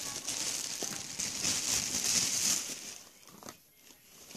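Crinkling of packaging being handled, for about three seconds, then dying away, with a faint click near the end.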